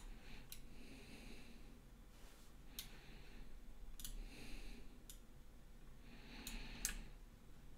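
A handful of faint, sharp computer mouse clicks, irregularly spaced, with soft breathing between them.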